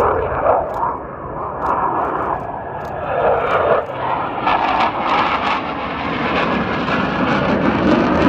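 Military jet flying low past, its engine noise a continuous broad rush that takes on a crackling edge from about four and a half seconds in.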